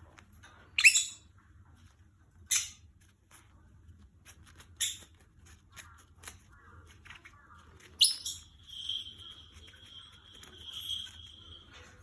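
Pet lovebird giving four short, sharp chirps a couple of seconds apart, then a long steady high tone from about eight seconds in that lasts several seconds, with faint rustling between.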